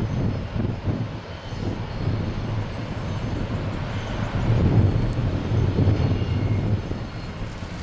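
Airbus A340-300's four CFM56 turbofan engines running at taxi power, a steady low rumble that swells a little about halfway through.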